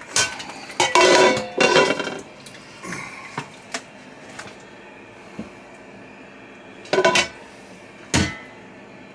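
Metal pots and sieves clanking and clattering: a burst of ringing knocks in the first two seconds, then two more sharp clanks about seven and eight seconds in.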